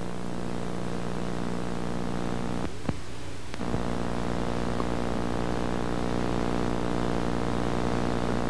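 Steady low electrical buzz of mains hum on the recording. It breaks off for about a second near three seconds in, with a click at each end of the gap.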